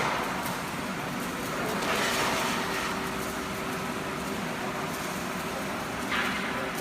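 Straight-seam welding machine for extinguisher cylinders running: a steady machine hum with a faint held tone, broken by two short hisses, about two seconds in and again near the end.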